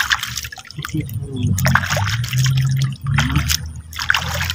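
Water splashing and sloshing in several short bursts.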